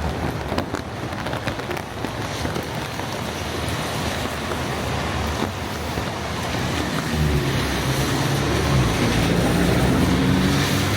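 A steady rushing noise. From about seven seconds in, the low hum of an approaching train's engine grows louder.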